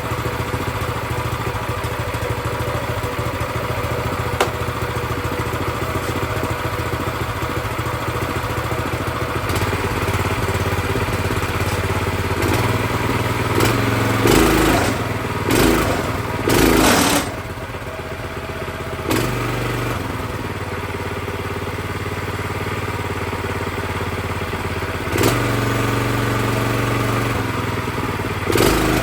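New Predator 212cc single-cylinder OHV engine on a plate compactor running steadily at a raised idle. It surges louder in several short bursts about halfway through, and twice more near the end.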